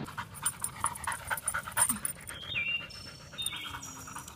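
Yellow Labrador retriever panting rapidly in quick breaths, with a few short high chirps in the second half.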